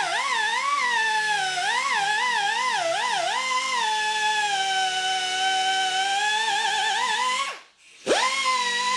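Right-angle air die grinder spinning a small hook-and-loop sanding disc pressed hard into wood, generating friction heat to melt the disc's plastic Velcro hooks. Its whine wavers up and down as the pressure loads it, then holds steady. Near the end it winds down to a stop and is started again with a sharp rise.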